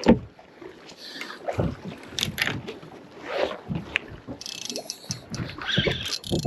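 Irregular knocks and rustling on a small boat at sea, with wind on the microphone; a sharp knock right at the start is the loudest.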